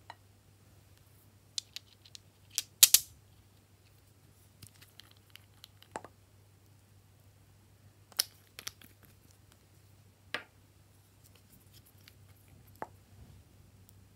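Nail polish bottles, caps and brushes being handled: scattered sharp clicks and taps of plastic and glass, the loudest a close pair about three seconds in, over a faint steady hum.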